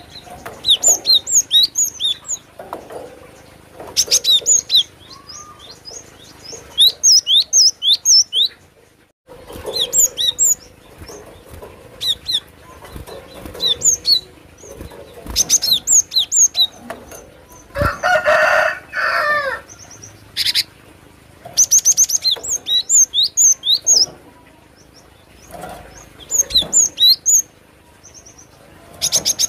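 Cinereous tit (gelatik batu) singing: quick bursts of high, sharp chirps repeated every second or two. About 18 s in comes a lower, harsher chattering call, and a few sharp clicks sound between phrases.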